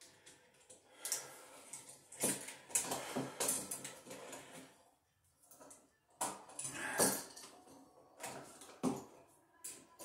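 Irregular scraping, rustling and clicking as the wires and light switches in a multiple switch box are handled and worked by hand.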